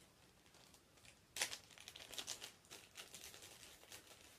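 Small clear plastic bag crinkling as it is handled and opened, a dense run of crackles starting about a second and a half in.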